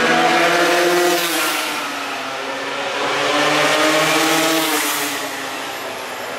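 Racing motorcycle engines running hard as the bikes pass, one loud pass at the start and another building about four seconds in.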